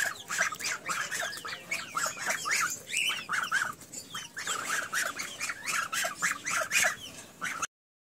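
A flock of ducks and chickens calling, with many short overlapping squawks and quacks following one another closely.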